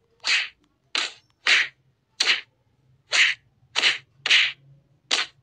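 Cartoon transition sound effect: a string of about eight short, sharp hissing puffs at uneven spacing of roughly half a second to a second.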